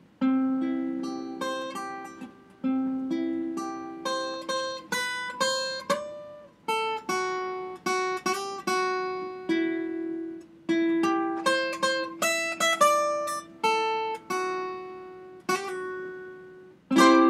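Acoustic-electric guitar with a capo, played with a plectrum: quick single-note requinto lead lines (punteo) in the bachata style, each note plucked and ringing out, in short phrases with brief pauses between them.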